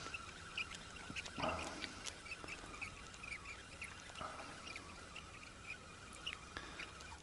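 Faint, scattered short bird chirps and calls, with a couple of slightly louder calls about a second and a half and four seconds in, over a faint steady hum.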